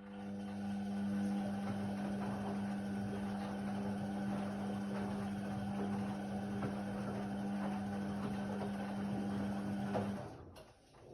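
Indesit WIDL 106 washer-dryer running a phase of its cycle: a steady hum over a rushing noise that lasts about ten seconds, then cuts off.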